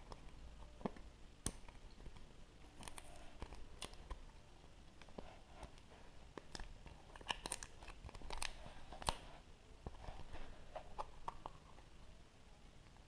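A surprise egg being unwrapped and opened by hand: its wrapper crinkling and tearing, with scattered sharp clicks and cracks.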